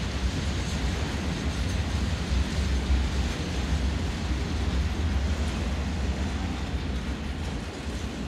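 Freight train of open box wagons rolling past, a steady low rumble of wheels on rail that eases slightly near the end.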